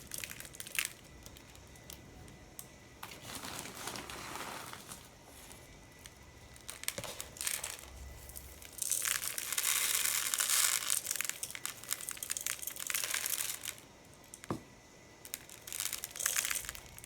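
Birdseed poured from a small cup, pattering and rustling onto a plastic bottle and into a bowl of seed. There is a long, dense spell of pouring from about nine to thirteen seconds in, with a few single clicks scattered through the rest.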